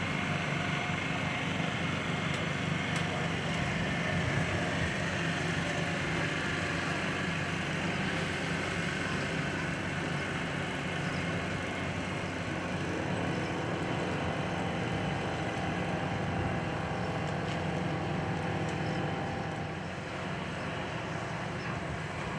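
Motorboat engine running steadily, with a faint whine that slowly falls in pitch over the first half.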